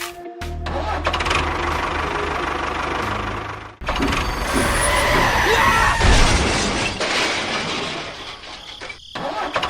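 Small engine running with a steady low hum, broken by abrupt cuts between shots.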